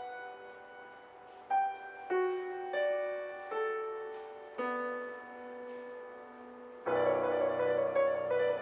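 Grand piano played solo in a classical style: single notes and small chords struck a second or so apart and left to ring. About seven seconds in, the playing turns suddenly louder and fuller, with fast notes over a low bass.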